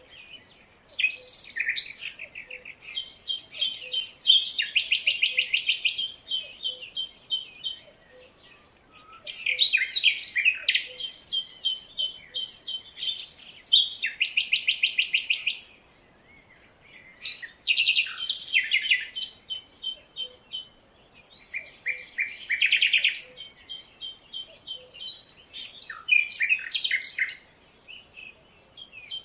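Songbirds singing in repeated bouts of rapid, high chirping trills, each a few seconds long, separated by short pauses.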